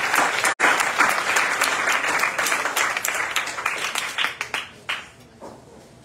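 An audience applauding at the end of a poem, the clapping thinning out and dying away about five seconds in.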